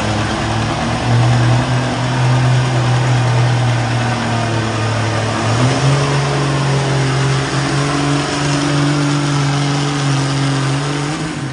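Antique tractor engine running hard and steady while pulling a weight-transfer sled, its pitch stepping up about halfway through; the sound cuts off abruptly at the end.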